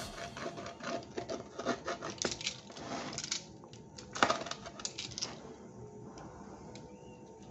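Pizza cutter wheel rolling through a thick-crusted square pizza, a quick run of crunching clicks as the blade presses through the crust onto the cutting board, the loudest about four seconds in. The clicking stops after about five seconds.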